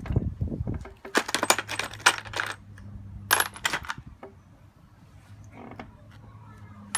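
Small metal parts clinking and rattling: a low thud, then a quick run of sharp clicks and a second shorter run, over a faint steady hum.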